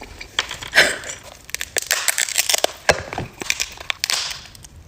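Crunching and crackling from a seafood boil being handled, an irregular run of sharp clicks and short crunches.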